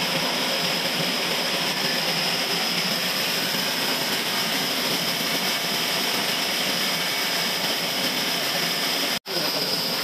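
Log band sawmill running steadily: a constant rushing machine noise with a high whine over it, broken by a brief dropout near the end.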